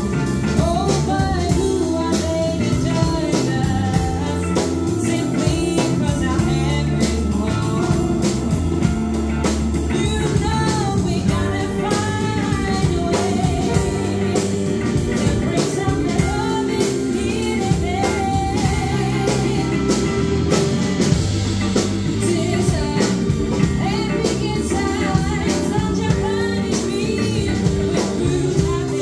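Live blues band: a woman singing lead over electric guitars, keyboard and drums keeping a steady beat.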